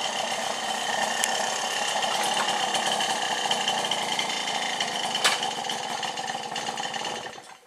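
A Sachs Balboa 50cc moped's small two-stroke engine running steadily during a short, slow ride. It cuts off abruptly near the end as it is switched off.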